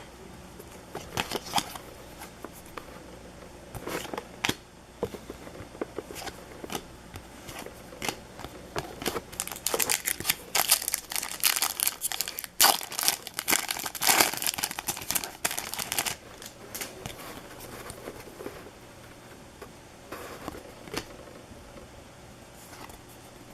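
Foil baseball card pack wrappers being torn open and crinkled, with scattered crackles at first and a dense stretch of tearing and crumpling in the middle, then lighter handling noises.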